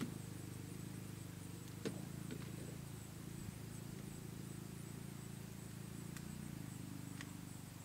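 One sharp crack about two seconds in, a shot from a suppressed Savage FV-SR .22LR bolt-action rifle, with a few fainter ticks later, over a steady low hum.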